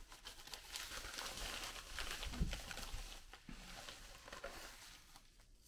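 Crinkling and rustling of a white packaging wrapper handled and unwrapped by hand, with many small crackles, dying down near the end.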